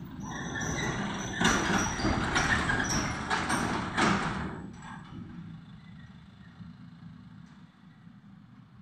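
Engine of a small loaded transport truck driving past close by, loudest for a few seconds with several sharp knocks and rattles, then fading as the truck pulls away up the road.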